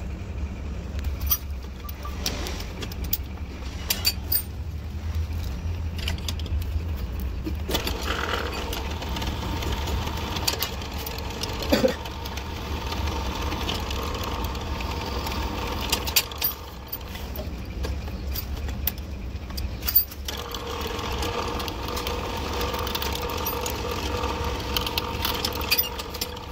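Bench drill press running with a steady low motor hum while its bit drills into the metal arm of a pair of pliers. The cutting adds a whining tone about eight seconds in that stops around sixteen seconds and starts again about twenty seconds in. Scattered sharp metal clicks.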